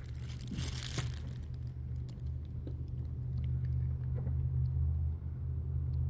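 Steady low rumble, with a crackling rustle about a second in and scattered light clicks from gloved hands handling multimeter test leads among the wiring of a heat pump's electrical panel.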